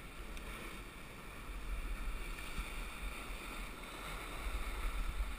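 Sea surf washing and churning over shoreline rocks: a steady rushing noise that swells a little past the middle.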